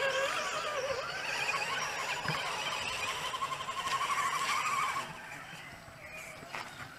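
Electric motor and gear drivetrain of a 1/10-scale RC crawler whining as it drives over a dirt trail, the pitch shifting up and down with the throttle. It stops suddenly about five seconds in.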